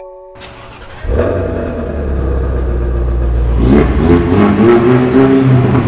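Ford Mustang 2.3 EcoBoost's turbocharged four-cylinder engine, heard through a tuned exhaust fitted with a vacuum valve. It comes in loud and deep about a second in and runs steadily, then is revved, rising and falling, from about four seconds in.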